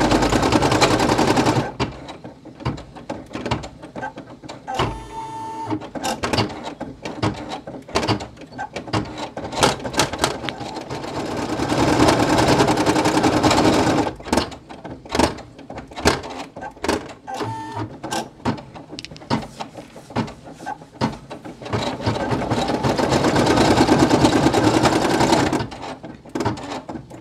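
Brother PE800 single-needle embroidery machine stitching out a patch. Runs of rapid, continuous needle stitching come at the start, about halfway and near the end, with stretches of sparser separate ticks and clicks between them.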